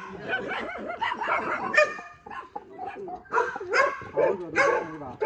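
Dog yelping and barking in several short, sharp cries, with whining in between, while it is held down for a vaccination injection.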